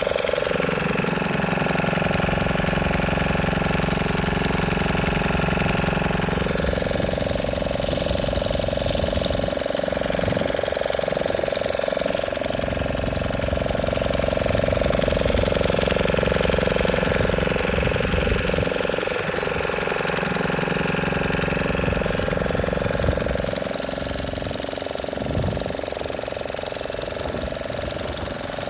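Motorboat engine running steadily, its pitch shifting slightly now and then.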